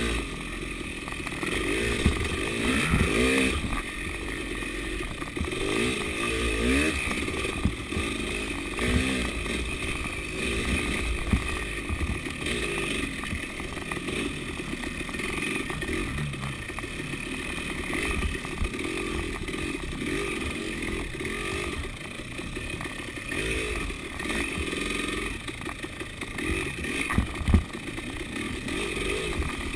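KTM 300 two-stroke enduro motorcycle engine revving up and down with the throttle as it rides a bumpy dirt trail, with knocks and clatter from the bike over the terrain, a sharp one near the end.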